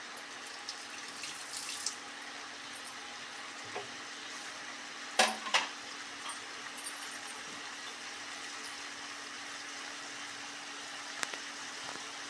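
Chopped jackfruit frying in ghee in a pan with a steady sizzle, and a spatula knocking against the pan a few times while stirring, loudest twice about five seconds in.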